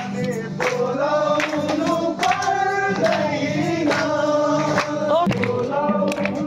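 A group of voices singing a song together over a steady beat of percussion strikes.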